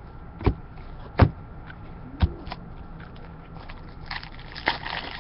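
Three dull knocks on a tabletop, then crinkling and rustling as trading cards and their plastic packaging are handled.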